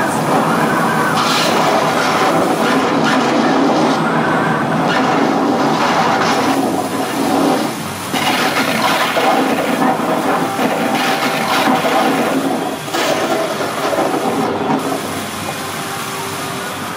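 Hurricane simulator's fans blowing wind at close to 70 mph, a loud steady rush of air buffeting the microphone, easing a little in the last few seconds.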